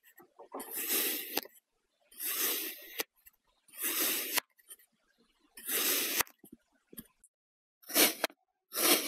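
Kinetic sand being cut: about six separate cutting strokes, each under a second with short silent gaps between them. The last two are shorter and sharper.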